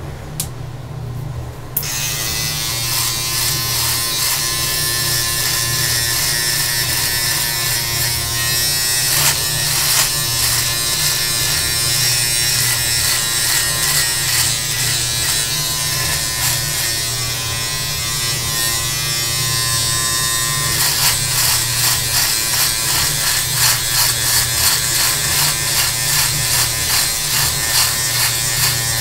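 Electric beard trimmer running with a steady motor hum; about two seconds in its blades start cutting through a full beard with a loud buzz. Near the end the sound pulses about twice a second as it makes short repeated strokes along the neck.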